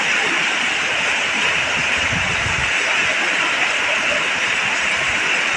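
Heavy rain pouring down in a steady hiss, with gusts of strong wind that rumble on the microphone about two seconds in.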